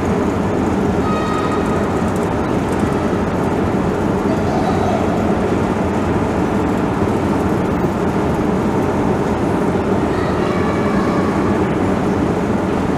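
Long station escalator running: a steady mechanical rumble with a faint hum.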